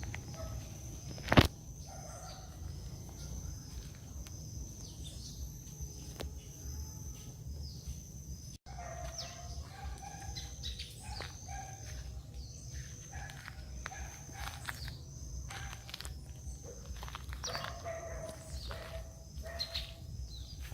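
Outdoor ambience of birds chirping and calling over a steady high insect drone. There is one sharp knock about a second and a half in, and the sound cuts out for an instant about eight and a half seconds in.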